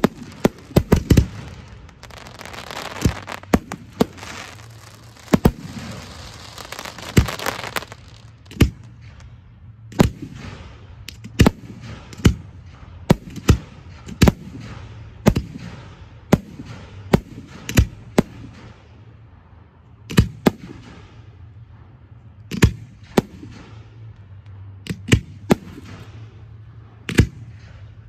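Aerial fireworks display: shells bursting in sharp bangs, irregularly spaced at about one or two a second, with a dense crackling hiss for the first several seconds.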